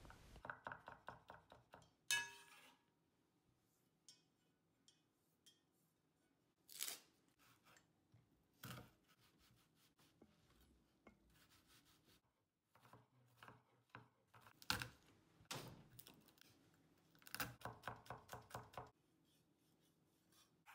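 Chef's knife chopping garlic, onion and raw chicken thighs on a wooden cutting board: faint knocks of the blade on the board, in quick runs at the start and near the end with single cuts between. One brief ringing clink comes about two seconds in.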